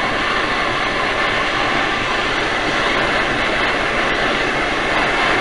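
Gas torch flame burning with a steady hiss, preheating a steel part before welding.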